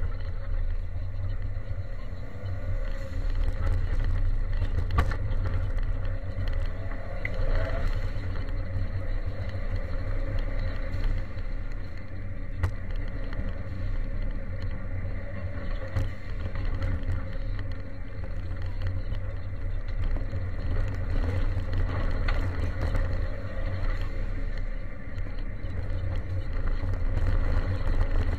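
Ford Sierra Cosworth 4x4's turbocharged four-cylinder engine driving the car at rally speed on a gravel road, heard from inside the cabin, with a heavy steady low rumble, tyre and gravel noise, and scattered sharp clicks.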